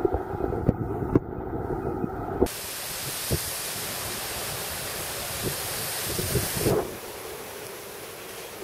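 Muffled underwater noise with several sharp clicks, cut off about two and a half seconds in by a loud, steady hiss with a few thumps near its end. The hiss then drops to a softer hiss.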